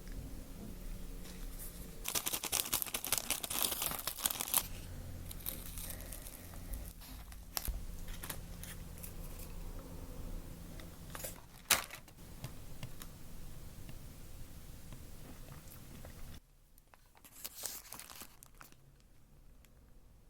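Plastic food packaging being handled, crinkling and tearing, densest about two to four and a half seconds in, with a single sharp snap near the middle.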